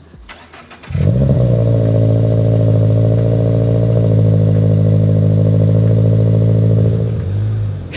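Car engine revved up about a second in and held at a steady high rev for about six seconds, then dropping back near the end.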